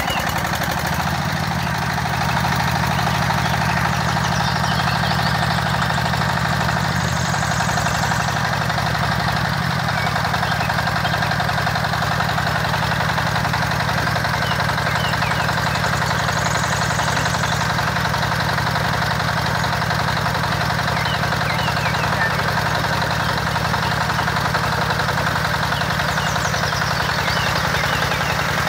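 Miniature gasoline engine running steadily, driving a miniature water pump. Its note shifts slightly about eight to ten seconds in, then holds even.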